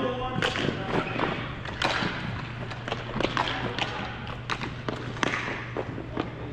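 Irregular thuds and taps from play in a team game, over a steady low hum.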